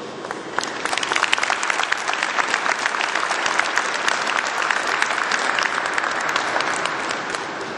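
Audience applauding, building up within the first second and fading near the end.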